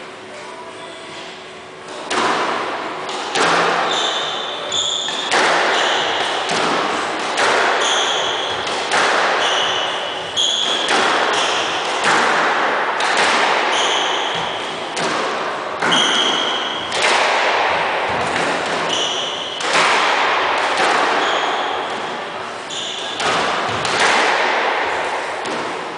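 Squash rally: the ball cracking off racquets and the court walls about once a second, each hit echoing round the enclosed court, starting about two seconds in. Short high squeaks of shoes on the wooden floor come between the hits.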